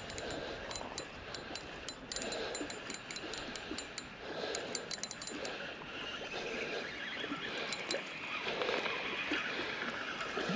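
Small waves lapping on a pebble shore, a soft wash coming every couple of seconds. A scatter of light clicks in the first half.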